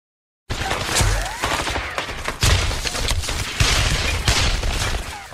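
Battle sounds: rapid, dense gunfire with several heavy booms, starting abruptly about half a second in.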